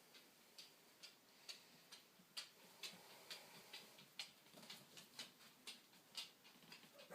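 A clock ticking faintly and evenly, about two ticks a second.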